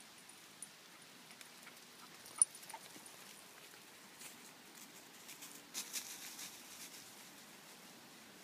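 Faint rustling and crackling in dry leaf litter on a forest floor, with one sharp tick about two and a half seconds in and a denser patch of crackling around six seconds in.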